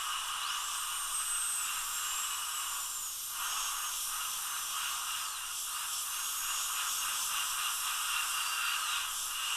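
High-speed dental air-turbine handpiece with a 330 carbide bur cutting an access hole through a porcelain-fused-to-metal implant crown, with a water-spray hiss. Its high whine rises about half a second in, then dips and recovers several times as the bur bites into the metal.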